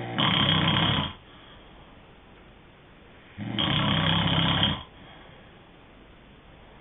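A person snoring during sleep, in slow regular breaths: two snores about three and a half seconds apart, each about a second and a half long, with a quiet hiss between them.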